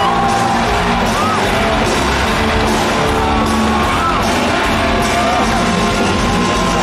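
Rock band playing live in an arena, electric guitar over the band, with the crowd yelling and whooping throughout.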